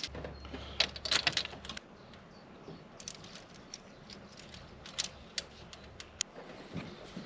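Small metal engine parts, the freshly cleaned valve rocker arms, clinking and jingling against each other as they are handled, with a quick flurry of clinks in the first two seconds and then a few single clicks. A low hum sounds under the first couple of seconds.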